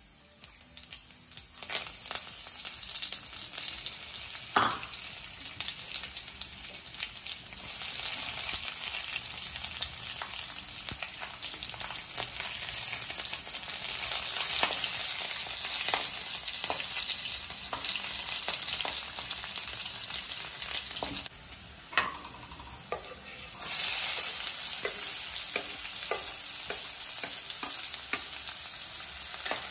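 Hot oil sizzling in a kadai as curry leaves, garlic and chopped onion are fried, with a metal spatula stirring, scraping and knocking against the pan. The sizzling builds over the first couple of seconds and jumps louder about three-quarters of the way through.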